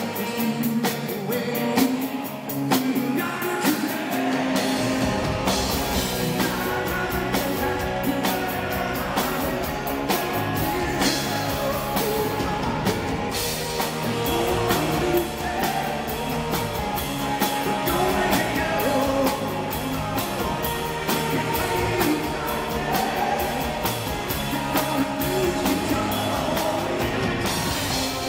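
Live rock band: a man sings lead over electric guitars and drums. The bass comes in about four seconds in.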